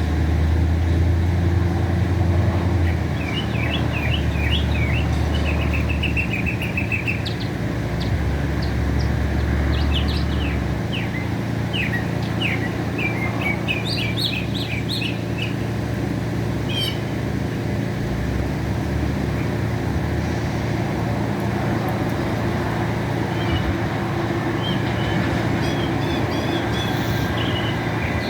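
Northern mockingbird singing a varied run of quick chirps, trills and repeated notes, busiest in the first half and fainter near the end, over a steady low rumble.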